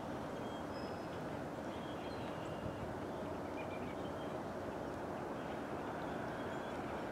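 Steady outdoor background rumble with a few faint, short high chirps scattered through it.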